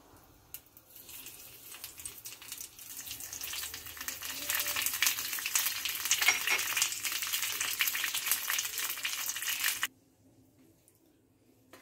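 Curry leaves and mustard seeds sizzling and spluttering in hot oil in the cups of an appe pan, a crackling hiss that builds over the first few seconds and then cuts off suddenly near the end.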